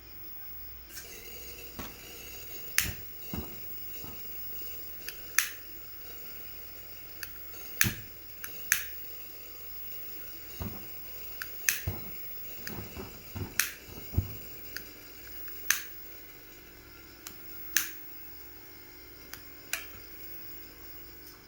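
Coleman 220K white-gas lantern burning with a steady hiss, while sharp clicks sound at irregular intervals throughout, more than a dozen times.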